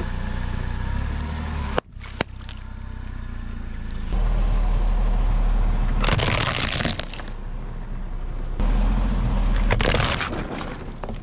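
Vehicle tyres rolling over and crushing objects, with the engine running low underneath: sharp single cracks or pops about two seconds in and near the end, and a loud stretch of plastic cracking and crunching about six seconds in as a plastic toy car is flattened.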